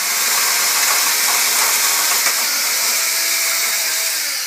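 Cordless drill running steadily, drilling into a steel kick-scooter handlebar tube, and easing off near the end as the motor winds down.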